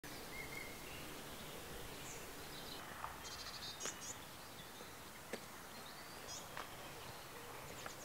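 Woodland ambience: scattered short calls, chirps and a brief trill from small songbirds over a faint steady hiss, with a few sharp clicks in the middle.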